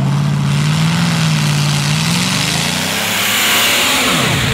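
Pulling tractor's engine running hard at high revs. Its pitch climbs through the middle, then dips and climbs again near the end.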